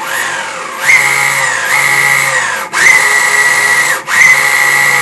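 Belt-driven electric skateboard motors spinning the rear wheels in the air under remote throttle: a loud, high whine that steps up and down in pitch as the throttle is worked and cuts out briefly twice before picking up again. This is a test run of newly fitted wheels and timing belts, which run smoothly.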